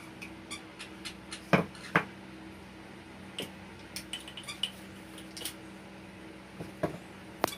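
Clinks and knocks of a small glass blender jar and its metal blade assembly being unscrewed and handled after grinding roasted coffee. Two sharp knocks come about one and a half and two seconds in, followed by scattered lighter clinks, over a steady low hum.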